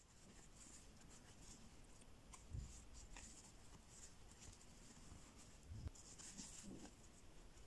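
Faint scratching and rustling of a fine metal crochet hook drawing thin yarn through stitches, with a couple of soft low bumps from the hands handling the work.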